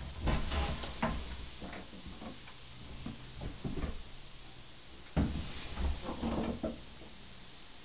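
Hand-lever altar bread cutter being worked, giving irregular metallic clunks and knocks, with the loudest clunk about five seconds in.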